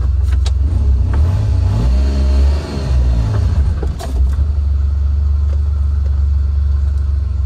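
Mitsubishi Mighty Mits kei truck's small three-cylinder engine running as the truck drives, with revs rising and falling about two seconds in and a brief dip near three seconds. The driver fears it is stalling.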